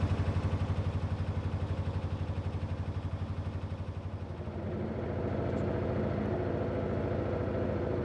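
Narrowboat's diesel engine running at cruising speed with a rapid, steady thump; about halfway through it turns into a smoother, steadier hum.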